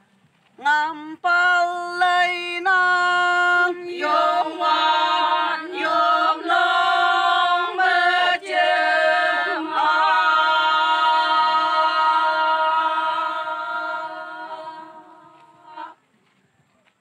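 Group of women singing a Konyak song in unison, unaccompanied. The song comes in short phrases, then ends on a long held note that fades away shortly before the end.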